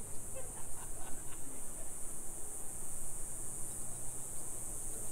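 Steady, high-pitched buzzing of insects, with a low steady rumble of street noise beneath.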